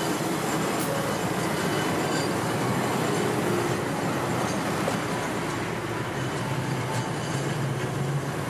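Kominato Railway torokko train, hauled by a steam-style diesel locomotive, passing close by and moving away: a steady rumble and clatter of wheels on the rails with the locomotive's engine hum, starting to fade near the end.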